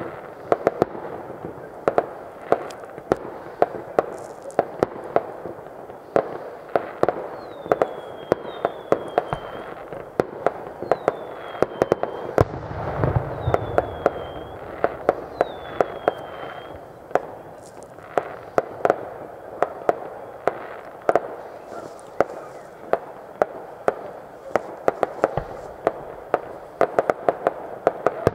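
Distant fireworks display: a continuous run of sharp bangs and pops, several a second, over a steady background din, with a heavier low rumble around the middle. Five short falling whistles sound over it in the middle stretch.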